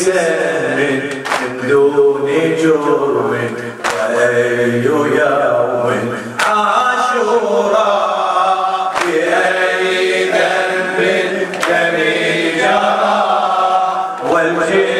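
Group of men chanting a Shia latmiyya, a Muharram mourning lament, in unison. A sharp slap of unison chest-beating lands about every two and a half seconds, keeping the beat of the chant.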